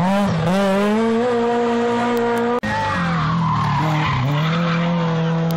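Rally car engines at high revs through a hairpin, in two pieces. The first engine note rises and then holds. After an abrupt cut about two and a half seconds in, a second car's engine note dips and then holds. Tyre noise runs under both.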